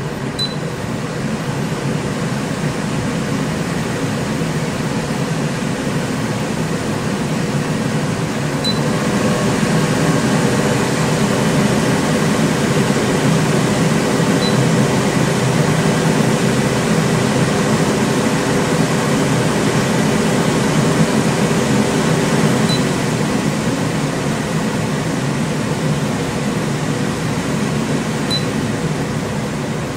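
Silverline Comet island range hood's extractor fan running with a steady airy rush and faint hum. It grows louder about nine seconds in and drops back again after about twenty-three seconds. A few short high blips sit on top of it, two of them where the loudness changes.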